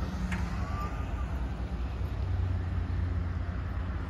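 Low, steady engine rumble of a van rolling slowly past close by, growing a little louder about halfway through.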